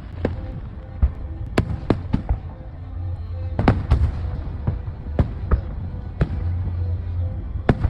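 Fireworks display: about a dozen sharp bangs of aerial shells bursting at irregular intervals, over a steady low rumble.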